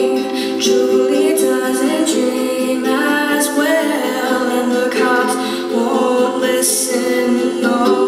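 Solo voice singing a song, accompanied by strummed ukulele chords.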